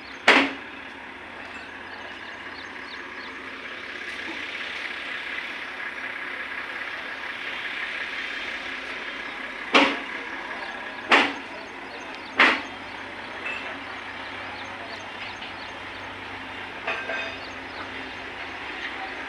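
Steady machine noise around a multi-axle heavy-haul trailer, broken by sharp knocks: one just after the start, three more about a second and a half apart between ten and thirteen seconds in, and a couple of fainter ones later.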